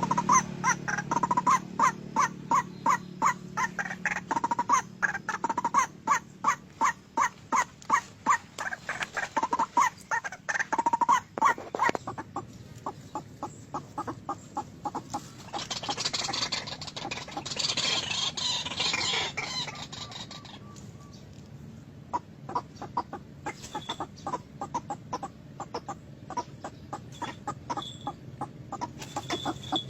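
White-breasted waterhen (ruak-ruak) calling: a rapid run of repeated croaking notes, about three a second, loud for the first twelve seconds and then fainter as the calling goes on. A hissing noise rises and fades midway.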